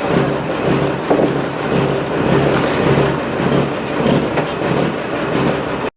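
Heavy diesel truck engine running steadily with a rhythmic clatter; the sound cuts off suddenly near the end.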